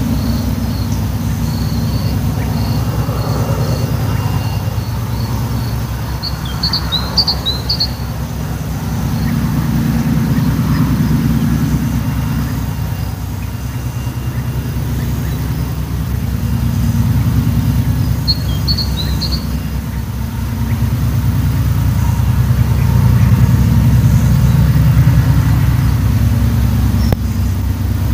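Deep, pulsing rumble of a 2TE10L diesel locomotive's two-stroke 10D100 engines, swelling and fading in slow waves. A bird chirps briefly twice.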